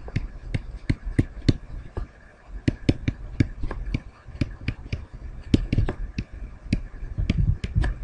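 Pen stylus tapping and clicking on a tablet surface while handwriting: a string of sharp, irregular clicks, a few each second.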